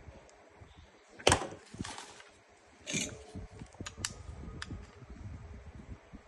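Workbench handling sounds: a sharp knock about a second in, a second softer knock, a short rustling scrape about three seconds in, then three light clicks.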